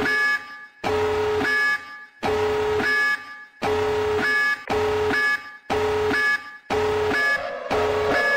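Electronic nuclear-attack warning alarm sounding in repeated bursts, each a steady low tone that steps up to a short high tone before cutting off, a little more than once a second and quickening slightly toward the end.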